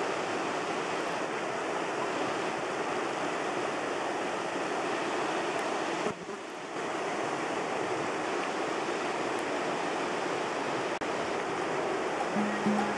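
River rapids rushing steadily, with a brief drop about six seconds in.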